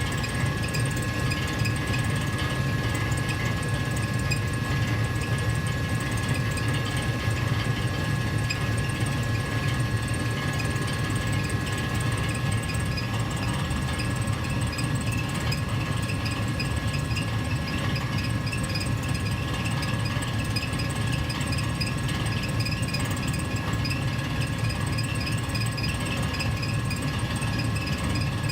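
Gas furnace heater running steadily: an even low hum with two faint steady tones above it.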